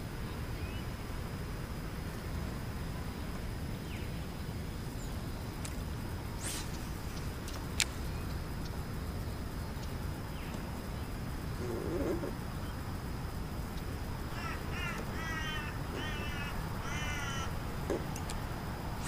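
A bird calling four times in quick succession, each call a short run of rapid notes, about three-quarters of the way through. Under it is a steady low rumble and a few faint clicks.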